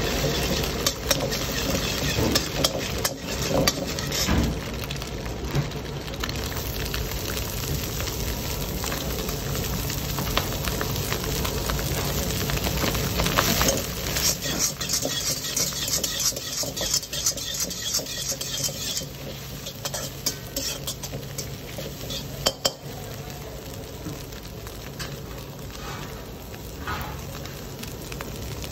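Stir-frying in a steel wok: hot oil sizzles under the egg, and then under shredded cabbage and carrot, while a metal spatula scrapes and clanks against the pan. The scraping and clanking are busiest in the first two-thirds and thin out near the end.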